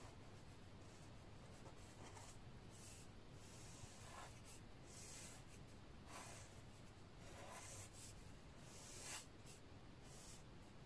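Faint scratching of a black felt-tip liner pen drawing on watercolour paper: a series of short strokes as an outline is traced.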